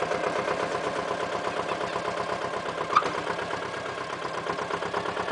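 AUSA 200 RMR mini dumper's engine idling steadily, with a short sharp click about three seconds in.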